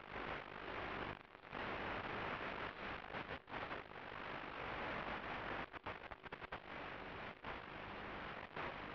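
Steady static hiss on the analog FPV video link's audio channel as recorded by the DVR, broken by many brief cuts, about a second in and repeatedly from the middle onward.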